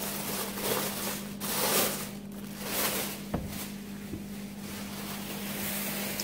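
Plastic bag crinkling and rustling as a welding helmet is pulled out of it, then a single light knock a little over three seconds in as the helmet is set down. A steady low hum runs underneath.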